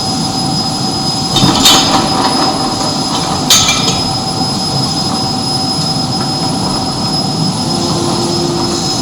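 Forge running: a continuous rushing noise with a few steady whining tones, broken by two sharp knocks about one and a half and three and a half seconds in.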